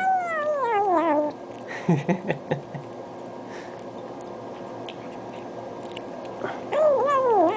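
A domestic cat yowling over its food. There is a long call that falls in pitch, a few short low grunting calls about two seconds in, and another falling call near the end.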